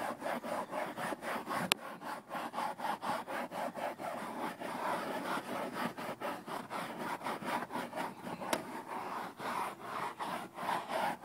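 Cloth truck seat upholstery being scrubbed by hand in quick back-and-forth strokes, about three to four a second, working in a sprayed-on liquid air freshener. A sharp click about two seconds in and a fainter one later.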